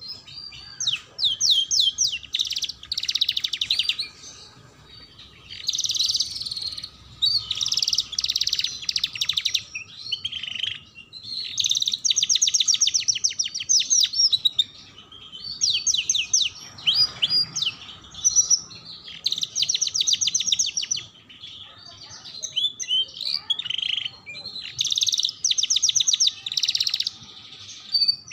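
Domestic canary singing: a string of bursts of very rapid trills and rolls of fast repeated high notes, each burst a second or two long, separated by short pauses.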